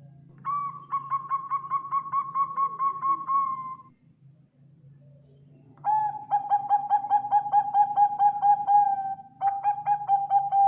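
A Bangkok-type zebra dove (perkutut) singing: three runs of rapid, evenly pitched cooing notes, about five a second. There is a pause of about two seconds after the first run, and the last run begins just after the second ends.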